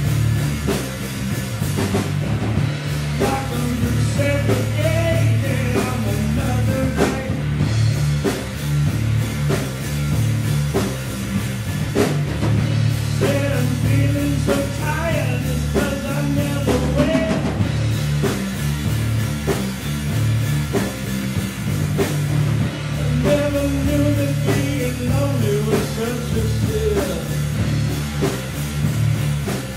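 Three-piece rock band playing live, loud and steady: electric guitar, bass guitar and drum kit, with a male voice singing over it in stretches.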